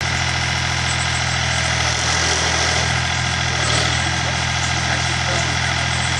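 A utility boom truck's engine idling steadily.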